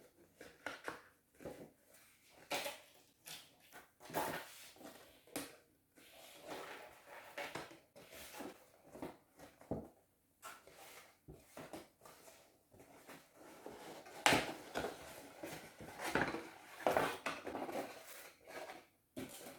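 Handling of a toy's cardboard and plastic packaging: irregular rustling, clicks and light knocks as the box is opened and the figure worked loose.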